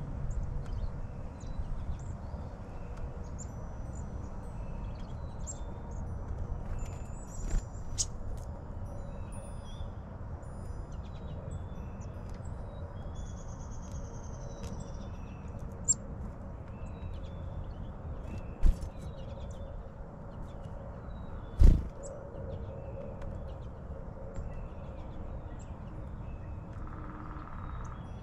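Backyard ambience with small songbirds chirping and calling in the background, including a short buzzy trill, over a steady low rumble. Several sharp knocks stand out, the loudest a little past twenty seconds in.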